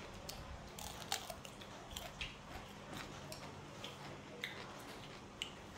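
Eating with chopsticks from a rice bowl: scattered light clicks of chopsticks against the bowl and soft chewing, irregular and a few per second, over a faint steady hum.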